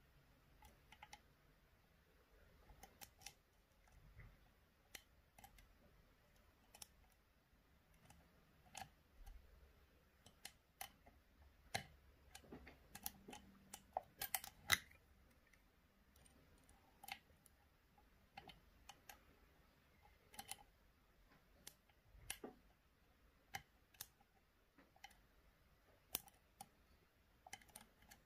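Faint, irregular metallic clicks and ticks of a lock pick working the pins of an Assa D12 version 2 security cylinder under tension, a few louder clicks near the middle.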